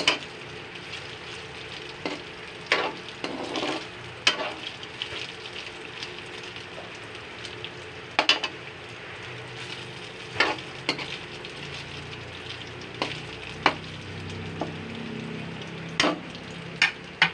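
Sliced hotdogs and ground pork sizzling in a wok, stirred with a metal ladle that scrapes and clinks against the pan at irregular moments.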